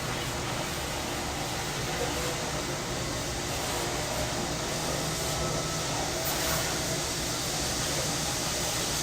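Steady city-alley ambience: an even, continuous wash of summer cicada chorus over a low hum of traffic and machinery.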